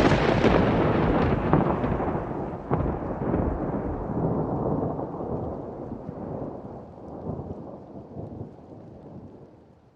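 Thunderclap: a loud crack that rolls on into a rumble with a few sharper cracks in the first seconds, then fades away steadily over about ten seconds.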